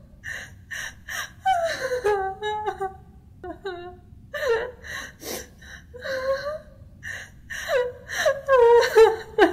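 A high-pitched human voice making wordless whimpering cries that fall in pitch, over and over, broken by sharp gasping breaths.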